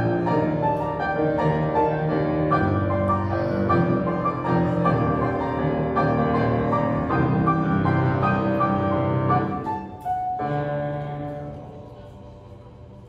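Grand piano playing a flowing accompaniment, then striking a final chord about ten seconds in that rings out and fades.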